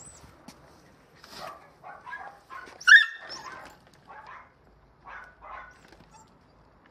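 A dog barking and yelping in a string of short calls, the loudest a sharp, high-pitched yelp about three seconds in.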